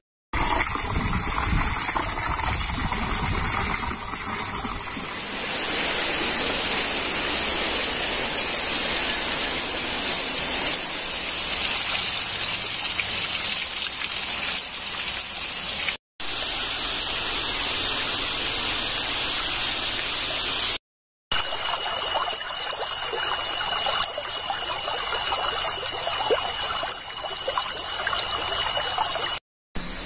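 Steady rush of flowing water, a stream or small waterfall, heard across several clips joined by abrupt cuts with brief gaps. In the last few seconds a thin, steady high tone runs over the water.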